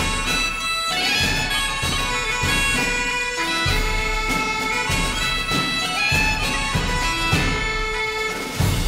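Background music: bagpipes playing a tune in held notes, with a drum beat underneath.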